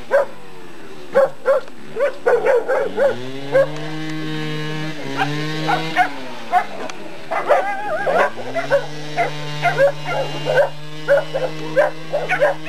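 A dog barking and yelping in short repeated calls, over two long, low drawn-out calls, the first about three seconds in and the second from about eight seconds in.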